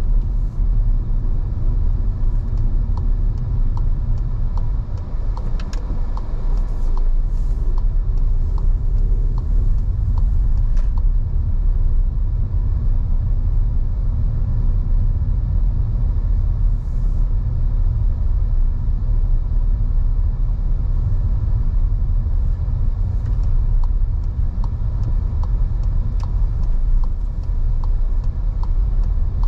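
Car being driven, a steady low rumble of road and engine noise. A light regular ticking, a little more than one tick a second, comes in for the first ten seconds or so and again near the end.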